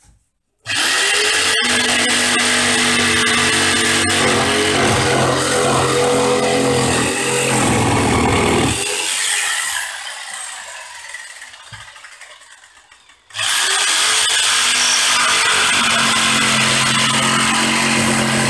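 DeWalt jigsaw cutting through a wooden pallet board: the saw starts about a second in and runs steadily for about eight seconds, then dies away over a few seconds and stops, and starts again near the end to carry on cutting.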